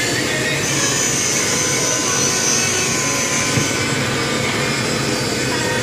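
Steady, loud drone of workshop machinery running, with a thin high whine for about three seconds in the first half.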